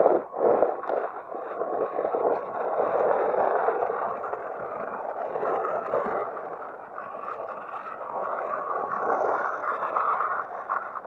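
Small electric motor and gears of an RC rock crawler whining as it drives on gravel, towing an RC monster truck by a line, with tyre crunch on the stones. The noise swells and dips with the throttle and stops abruptly at the end.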